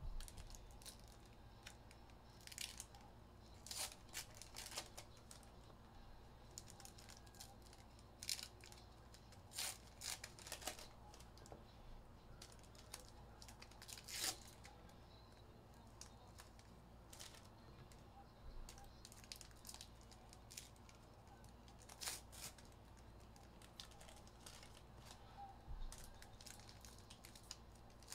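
Faint tearing and crinkling of plastic wrap and packaging as sealed boxes of trading cards are opened: short scratchy rips and crackles every second or two, the loudest about fourteen seconds in.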